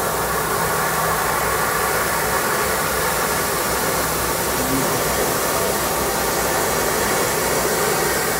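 Steam hissing steadily out from beneath a steam locomotive beside its driving wheels, a loud, even blow of steam.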